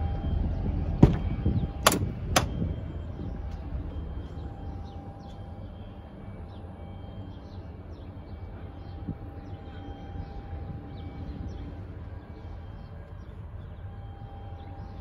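Ford Transit van's cab door being unlatched and opened: three sharp clicks of the handle and latch, about a second, two seconds and two and a half seconds in.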